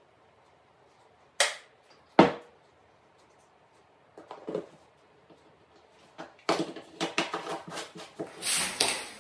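Hands handling a finish can and a disposable plastic spray-gun cup. There are two sharp knocks about a second and a half and two seconds in, then from about six and a half seconds on a quick run of plastic clicks and rattles as the cup's lid is pressed and snapped on.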